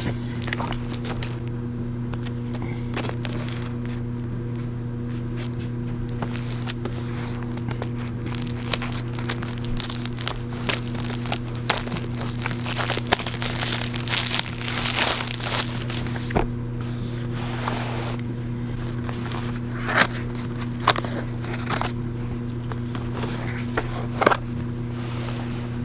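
Packaging being opened and handled: irregular crinkling and crackling of wrapping, with scattered sharp clicks, over a steady low hum.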